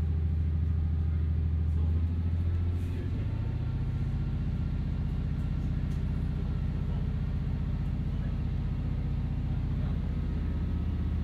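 Cabin running sound of a KiHa 40 diesel railcar under way. The diesel engine's steady low drone eases off and drops in level about three seconds in, while the wheel and rail noise of the moving car carries on underneath.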